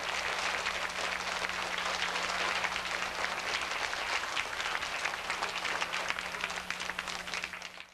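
Audience applauding, a dense clatter of many hands that dies away near the end.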